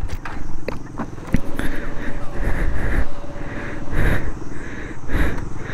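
Heavy, rhythmic panting close to the microphone, about two breaths a second, from a rider out of breath after hard off-road riding. A few sharp clicks and knocks come in the first second or so.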